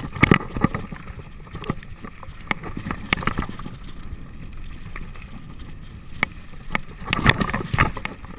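Mountain bike rolling fast down a rocky dirt trail: tyres crunching over stones, the bike rattling with sharp knocks at each bump, in clusters at the start and again about seven seconds in, with wind noise on the microphone.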